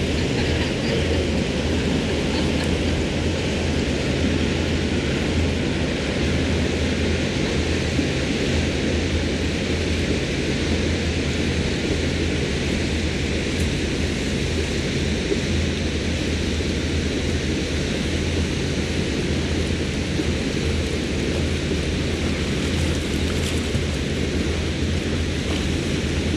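Sea Ray Sundancer's MerCruiser 7.4-litre inboard V8 idling as the boat moves slowly ahead. It is a steady low rumble under an even hiss.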